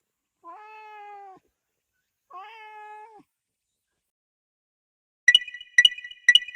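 Domestic cat meowing twice, each meow about a second long. Near the end come three quick, bright chime strikes about half a second apart, ringing on after each.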